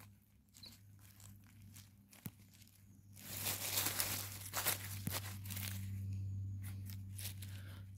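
Dry leaf litter and twigs crunching and rustling as a porcini mushroom is worked out of the forest floor by hand, with a few small clicks at first and the loudest scratchy crunching for a couple of seconds in the middle.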